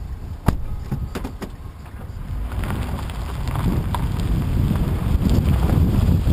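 Car driving along a gravel road, heard from a camera held out of the side window: a low rumble of tyres on gravel and wind on the microphone, getting louder from about halfway through, with a few sharp clicks near the start.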